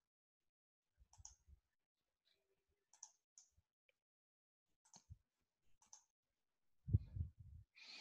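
Faint computer mouse clicks, a handful spread a second or two apart, with a few low thumps near the end.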